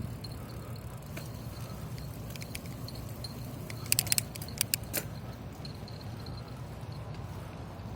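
Bicycle on the move: a steady low rumble of tyres and wind, with a quick cluster of sharp metallic clicks and jingles about four to five seconds in.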